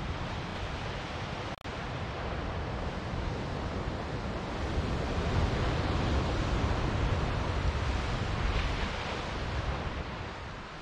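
Ocean waves washing onto the beach, swelling louder through the middle, with wind rumbling on the microphone.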